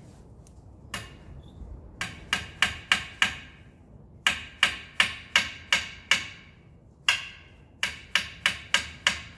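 Claw hammer driving nails into a board cut from an old wooden fence post. One blow comes about a second in, then three runs of quick, ringing blows, about three a second.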